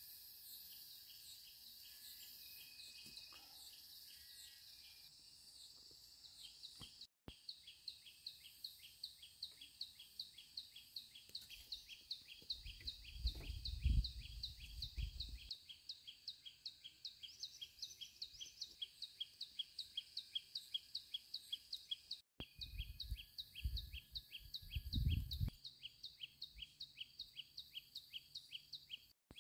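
A bird calling in a rapid, steady series of short, high, falling chirps, three to four a second, over quiet outdoor background. Twice, around the middle and near the end, a low rumble swells up and is the loudest sound.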